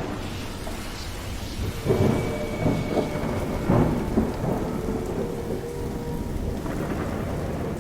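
Thunderstorm: steady rain with rumbling thunder, cutting in suddenly from silence, with louder swells of thunder about two, three and four seconds in.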